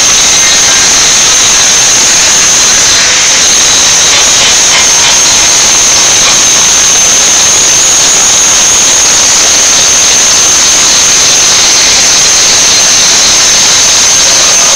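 Angle grinder running without a break, its disc grinding a sheet-steel front bumper: a loud, steady, high-pitched whine over a constant hiss.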